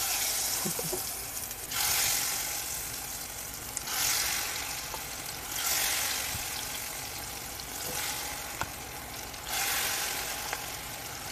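Battered shrimp deep-frying in hot oil: a steady sizzling hiss that swells louder about every two seconds as more shrimp go into the oil.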